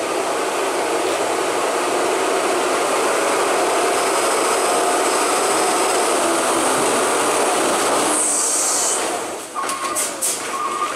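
Heavy truck carrying a load of iron, its diesel engine running loud and steady as it creeps along the broken road. About eight seconds in a sharp hiss of air brakes cuts in, the engine noise drops, and near the end reversing beeps start, about two a second.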